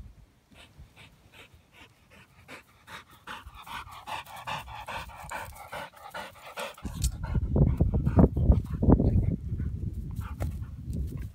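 Labrador retriever panting in quick, rhythmic breaths after a run, the breaths growing louder as it comes close. About seven seconds in, a loud low rumble takes over.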